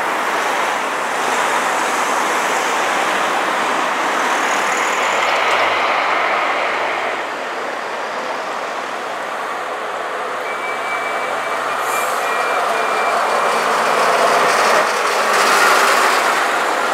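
Diesel engines of vintage Bristol VR double-decker buses running and passing close by, a steady rumble with street traffic noise. A thin high whine sounds for a few seconds past the middle.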